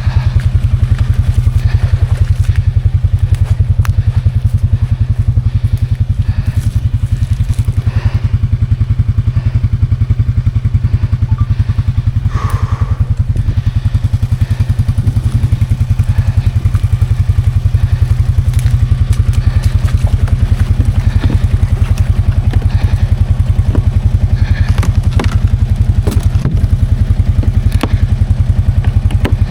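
Can-Am Outlander 700 XMR ATV engine running steadily at an even speed, with a few light knocks.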